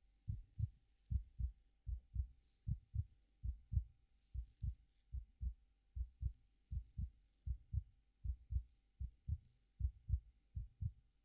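Heartbeat sounds: a steady run of low, paired lub-dub thumps. Over it come soft, high rustling swishes every couple of seconds, fingers playing through hair.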